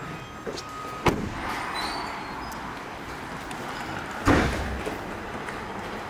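Renault Kadjar's door being shut: a sharp click about a second in, then a heavier slam about four seconds in.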